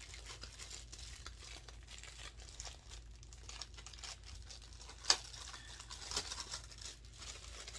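Packaging crinkling and rustling as an item is unwrapped by hand, with scattered light ticks and one sharp click about five seconds in.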